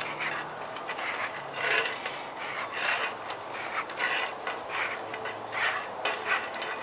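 A finger rubbing along the inside of a road bike tire casing in a series of scratchy strokes, feeling for thorns or sharp objects poking through.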